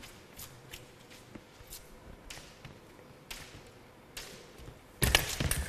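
Foil fencers' footwork on the piste: light, scattered shoe taps and squeaks, then about five seconds in a sudden loud flurry of stamps and sharp knocks as an attack begins.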